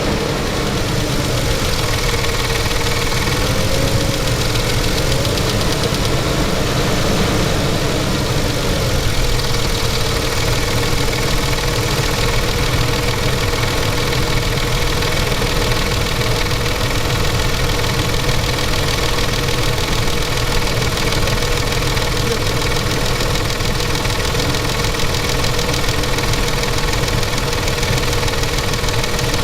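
Mercedes-Benz M112 V6 petrol engine running at idle with a rapid, steady knock from inside the engine. A steady whine sits over it and wavers slightly in the first ten seconds.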